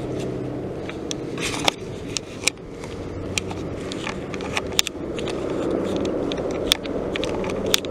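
Helicopter engine and rotor drone overhead, a steady hum that fades a little and then grows louder again, with scattered sharp clicks and crackles close by.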